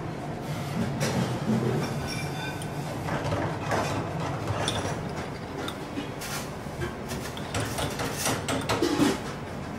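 Restaurant kitchen background: a steady low hum of extractor ventilation, with scattered light clinks and knocks of utensils and dishes.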